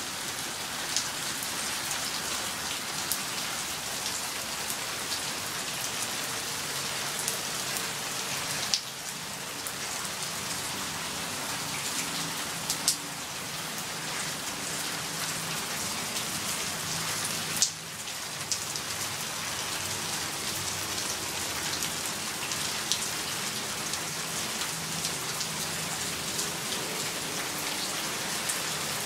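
Steady light-to-medium rain falling and hissing on surfaces, with a few sharper, louder single drop hits standing out from the patter.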